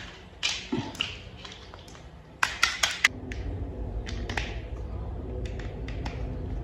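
Hard plastic toy parts clicking and tapping as they are handled and fitted together, with a quick run of sharp clicks about two and a half seconds in. A low steady hum sits under the later clicks.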